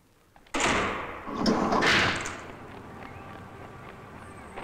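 A door bangs shut about half a second in, followed by a second rushing swell about a second later that settles into a lower steady hiss.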